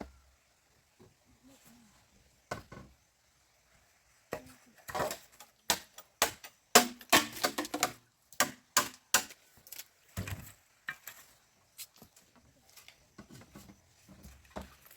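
Irregular sharp knocks and clatter, sparse at first, then coming thick and fast for about six seconds in the middle, ending with a duller thud, then only scattered faint knocks.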